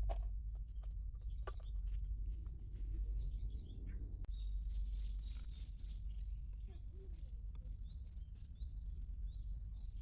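Birds chirping outdoors: a run of short, high, repeated falling notes starting about halfway in, over a steady low rumble, with a few faint clicks early on.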